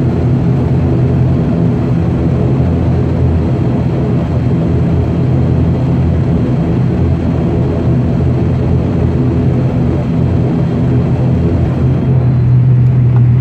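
ATR 72-600's Pratt & Whitney PW127 turboprop engines and propellers running steadily, heard from inside the cabin as a drone of several low steady tones. The low hum grows a little louder near the end.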